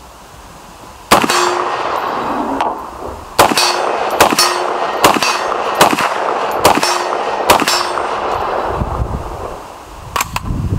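Alexander Arms .50 Beowulf AR-15 rifle firing seven shots: one, a pause of about two seconds, then six more about one a second apart. Steel targets hit downrange ring with a clang after the shots. Two lighter sharp clicks come near the end.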